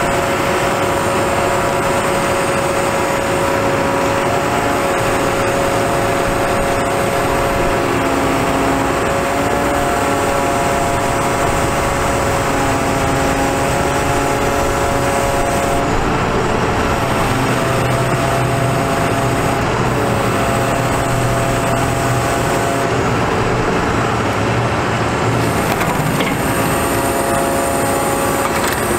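Caterpillar C7 diesel engine running under hydraulic load while the Hiab knuckleboom crane is worked, with a steady whine whose pitch shifts several times as the boom sections move.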